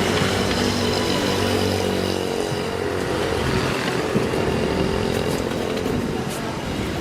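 A motor running steadily, with a humming tone whose lower part drops away about two and a half seconds in.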